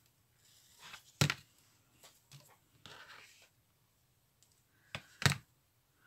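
Two sharp knocks about four seconds apart, with soft rustling and scraping between: a hot glue gun being handled and set down on a craft table.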